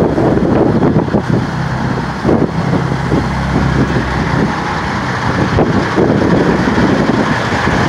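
Heavy-duty tow truck's diesel engine idling with a steady low hum, under wind buffeting the microphone.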